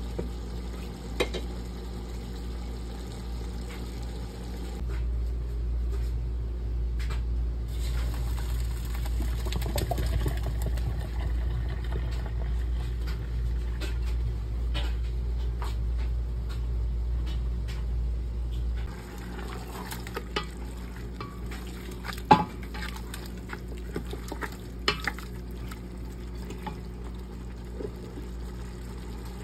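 A pot of rice boils and is stirred with a wooden spoon. From about five seconds in, the boiling water and rice are poured out into a colander in the sink, a steady rush of draining water that stops about 19 seconds in. After that, a wooden spoon stirs beef in a stainless steel pot with several sharp knocks against the side.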